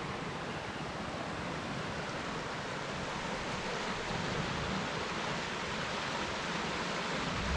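Rushing river and waterfall water, a steady even rush.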